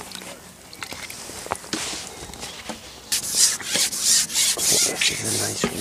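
Fishing pole sections sliding and rubbing through the hands as the pole is fed back out, a run of quick scraping strokes about three a second starting about three seconds in, after a few lighter knocks and rubs.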